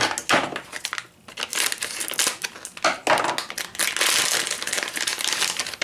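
Plastic packaging crinkling and rustling as it is handled, in irregular crackly bursts with a short pause about a second in.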